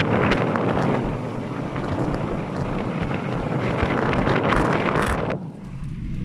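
Rough rushing wind noise buffeting the microphone, with crackles. About five seconds in it cuts off abruptly to a steadier, lower vehicle rumble.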